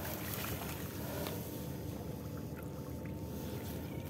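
Steady low sloshing and rustling of water as someone wades through a flooded swampy field, with a faint steady high whine underneath and a few light ticks.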